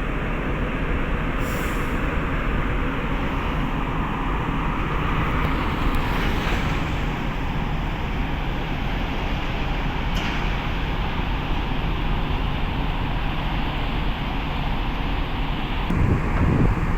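Steady, loud machinery rumble and noise from cargo-ship discharge work, with a brief heavier low rumble near the end.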